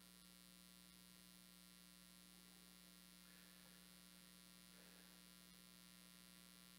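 Near silence, with a steady low electrical hum.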